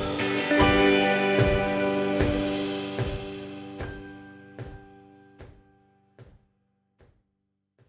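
Background instrumental music with sustained tones over a steady drum beat, fading out to near silence by the end.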